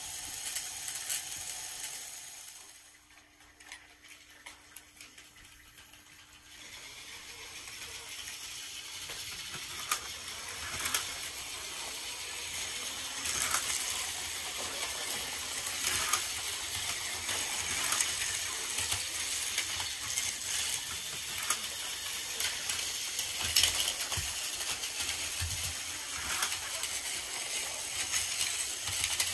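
Battery-powered Plarail toy trains running on plastic track: a steady whir of small motors and gears with scattered clicks. It drops quieter a few seconds in, then builds back up and runs louder with more clicks through the second half.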